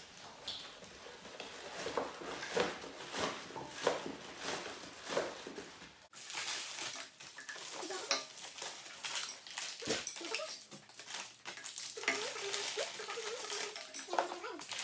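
Light clatter of plastic party glasses and plastic cutlery being set out on a table, mixed with the crinkling of plastic-wrapped sweet packets being pushed into a paper piñata. It comes as many small, irregular clicks and rustles.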